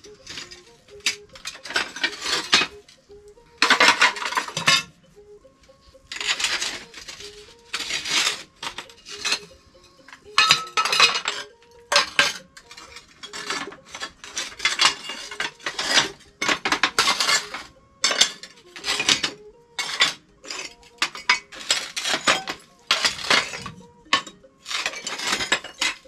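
Leftover tile pieces clinking and clattering against one another as they are picked up and stacked by hand, in quick irregular clusters of knocks.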